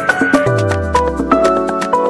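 Background music: quick, sharply struck notes over held tones, with a low note sliding downward from about half a second in.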